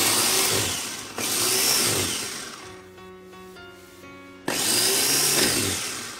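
Ninja food chopper's motor running in three short pulses, each starting sharply and winding down, chopping ingredients in the bowl.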